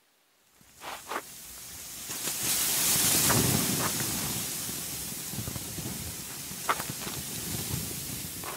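Blizzard wind blowing hard across the microphone, swelling over the first few seconds and then easing to a steady rush, with a few crunching footsteps in snow.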